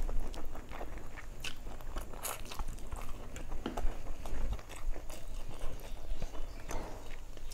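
Close-miked chewing of a person eating with her hands: wet mouth sounds with many short, irregular crunchy clicks, along with fingers mixing food on a steel plate.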